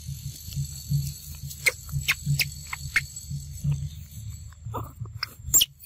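Young macaques squeaking and smacking as they bite into fruit held out in a person's hand: a scatter of short sharp clicks and squeaks, thickest in the middle and again near the end. A steady high-pitched insect drone runs underneath.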